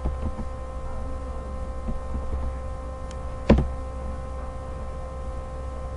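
Steady electrical hum in the recording, with one sharp click about three and a half seconds in.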